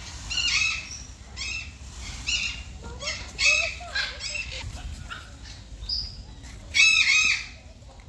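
Fowl calling: a series of short, harsh calls about once a second, the loudest a double call near the end.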